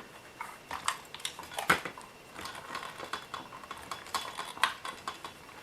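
Irregular light clicks and taps of small metal and plastic parts being handled as the battery cover of a die-cast metal RC loader is worked loose.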